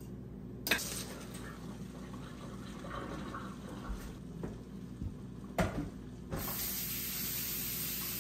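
Kitchen tap running into a stainless-steel sink and a metal bowl, with a few knocks. About six seconds in the flow grows louder and turns into a steady full stream.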